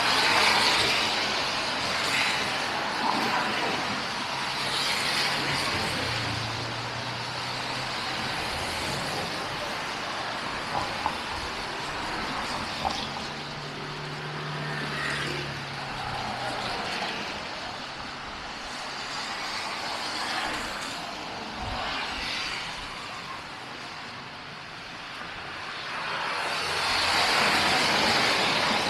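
Street traffic: vehicles passing one after another, their tyre hiss on the snowy road swelling and fading, the loudest pass near the end, with a low engine hum from passing vehicles now and then.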